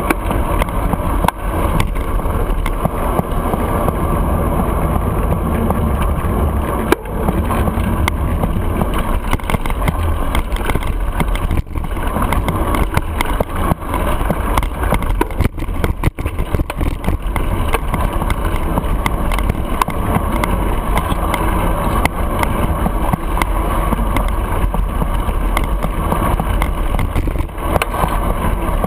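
Wind rushing over the microphone of a handlebar-mounted camera on a moving bicycle, a steady rumbling noise mixed with street traffic, with frequent small knocks and rattles from the road surface.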